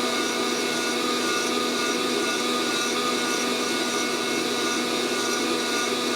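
Fresh Roast SR800 hot-air coffee roaster running steadily mid-roast, its fan blowing heated air through the agitating beans with an even hum and whoosh. No cracks are heard: the beans have not yet reached first crack.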